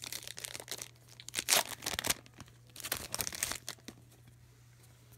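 Foil trading card pack being torn open and its wrapper crinkled: a quick run of sharp tearing and crinkling bursts for about three and a half seconds, the loudest about one and a half seconds in, then only quiet handling.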